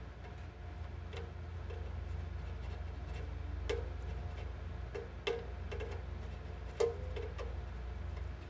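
A fret crowning file working the tip of a small steel HO-scale railroad spike set in a banjo fingerboard: light, irregular clicks and taps, about six of them, some with a brief ring, over a steady low hum.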